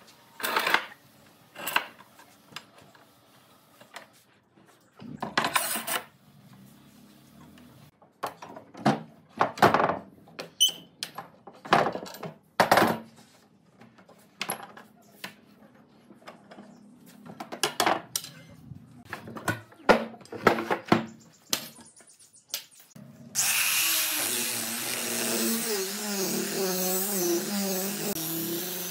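Metal pipe clamps being fitted and tightened across pine boards: a scattered series of knocks, clicks and clacks of metal on wood. About 23 seconds in, an angle grinder with a rubber-backed sanding disc starts and runs continuously, louder than everything before, its pitch wavering as it sands the pine.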